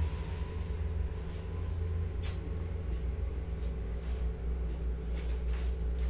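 A steady low hum, with a few faint clicks, the clearest a little over two seconds in.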